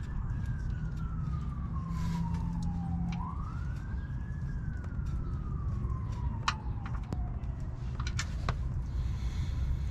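An emergency vehicle siren wailing in a slow fall, rising again about three seconds in and falling once more, over a steady low rumble. A few small metal clicks come from the drain plug being worked loose, and near the end a hiss starts as engine oil begins to pour into the drain pan.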